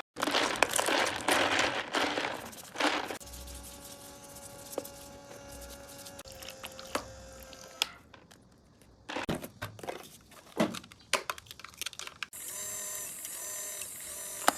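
Hands unboxing a collectible: packaging crinkling and tearing, then scattered clicks and taps from handling plastic parts. A steady tone with overtones runs faintly through the middle, and a louder set of steady tones comes in near the end.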